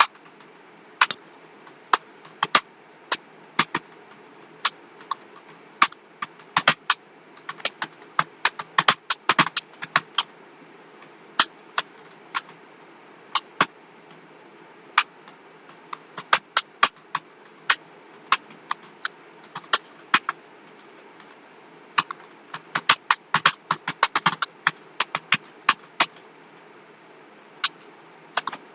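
Computer keyboard typing: irregular keystroke clicks in quick runs of several keys, broken by short pauses, as a passage is typed out for a timed typing test.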